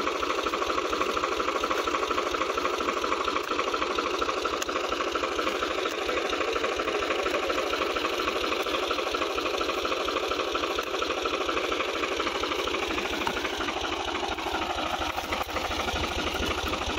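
Diesel engine of a New Holland TT55 tractor idling steadily.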